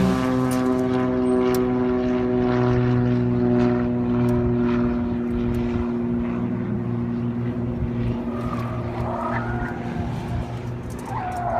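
A steady engine drone, with tyres squealing in wavering tones from about eight seconds in as police cars take tight turns around the cones at speed.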